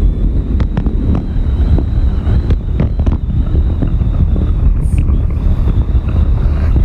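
Strong wind buffeting the microphone in a loud, steady low rumble, with a few faint clicks through it.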